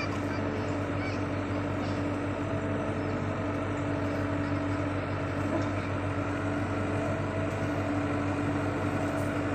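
Kartar combine harvester's diesel engine running steadily with a constant drone as the tracked machine drives slowly down loading ramps.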